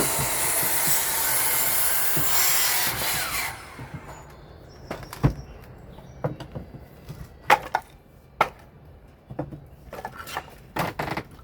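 A saw cutting through wood for about three and a half seconds, stopping abruptly. It is followed by scattered light knocks and clicks of wood and tools being handled.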